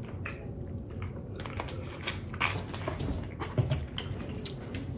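Scattered small clicks and crinkles at close range: mouth sounds of chewing shortbread, mixed with a plastic water bottle being handled.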